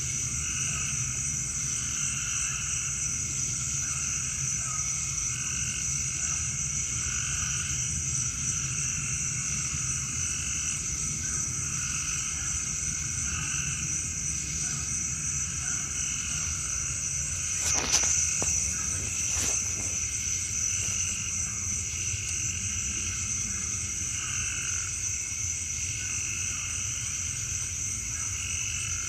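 Chorus of calling frogs and insects: a steady high-pitched trill with rhythmic lower calls about once a second, over a low steady hum. Two sharp clicks a little past halfway.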